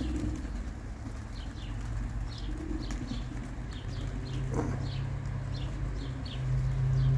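A flock of racing pigeons at the loft: wings flapping and low cooing, with short, high, falling chirps repeating a few times a second throughout. A steady low hum underneath grows louder in the last few seconds.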